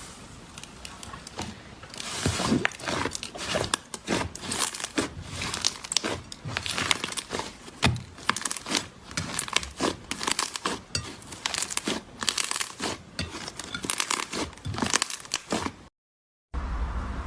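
Slime being worked by hand, making a dense run of irregular crackles and pops. It breaks off briefly near the end and gives way to a steady hiss.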